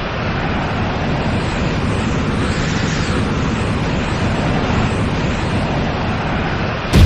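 Dragon Ball–style anime sound effect: a steady, rumbling rush of noise, then a sudden loud blast near the end.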